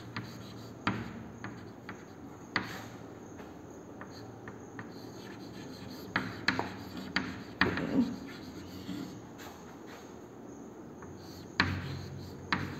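Chalk writing on a chalkboard: irregular scratching strokes and sharp taps as letters are written.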